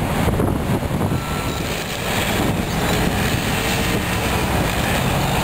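Bobcat skid-steer loaders' diesel engines running under load while clearing brush, a steady low rumble, with a short backup-alarm beep about a second in.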